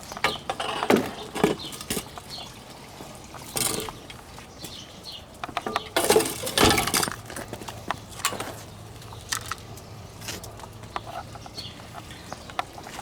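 Wood campfire crackling and popping with scattered sharp snaps. Twice, about a second in and again around six seconds in, a louder rustling knock cuts across it.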